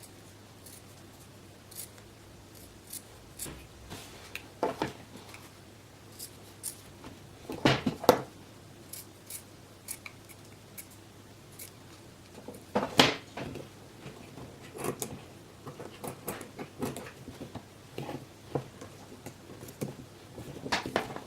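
Scissors snipping off excess cover material around a headphone ear cushion: a series of short, irregular snips, the loudest about 8 and 13 seconds in.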